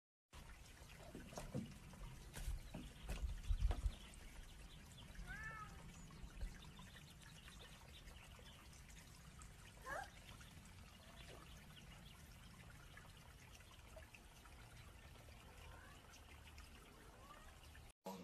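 Faint lapping water at a wooden dock with a low rumble, a few low thumps about three to four seconds in, and two brief high calls, one about five seconds in and one about ten seconds in.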